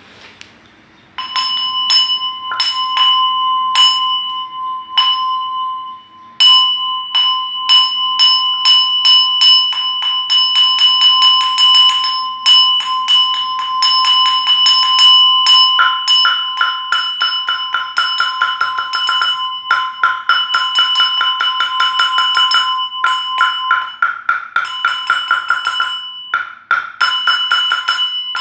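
Small brass Buddhist bowl bell struck with a wooden striker. First come single strikes about a second apart, then, after a brief pause, a fast continuous roll of strikes. A second, lower ringing tone joins about halfway through.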